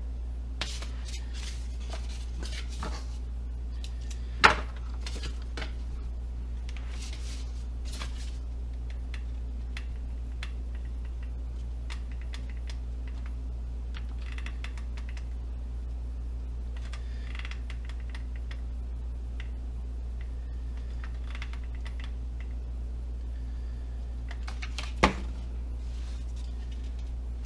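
Scattered small clicks and rustles of hand work with tools and craft materials at a workbench, over a steady low hum. Two sharp knocks stand out, about four and a half seconds in and near the end.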